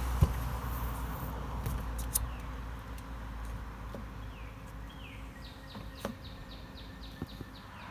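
A bird singing a quick run of short descending notes in the background, with a soft low thump just after the start and a few light clicks.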